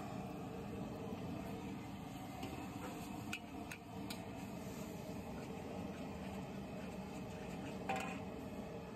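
Mee goreng frying in a large wok over high heat: a steady roar of the burner and sizzling noodles. A few clinks of the metal spatula against the wok about three to four seconds in, and a louder clank near the end.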